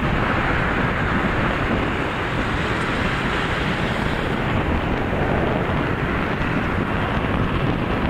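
Wind buffeting the microphone: a steady rushing noise with a gusty low rumble, and no bird calls.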